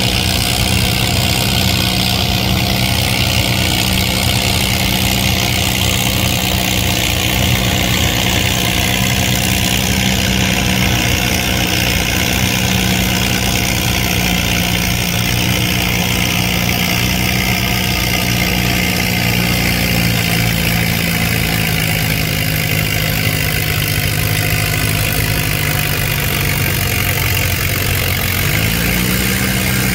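Antique farm tractor engine running steadily, its pitch sinking slowly over some twenty-five seconds, then briefly rising and falling again near the end.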